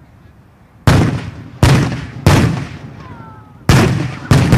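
A series of five explosive demolition charges going off one after another, each a sharp blast that dies away over about half a second, with a longer pause before the last two. They are the charges blowing the beach obstacles.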